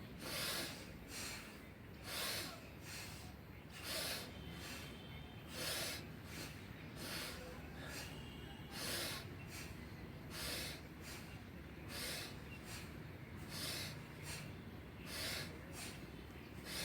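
Bhastrika pranayama (bellows breath): forceful breathing through the nose, a loud breath then a softer one, repeated in an even rhythm about every second and a half.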